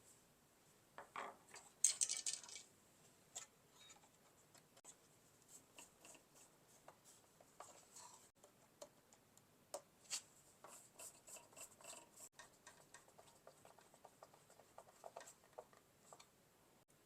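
Small plastic clicks, taps and rubbing from the parts of a Roomba i7 robot vacuum being handled during reassembly, with a louder cluster of clatter about two seconds in and a run of light ticking later on.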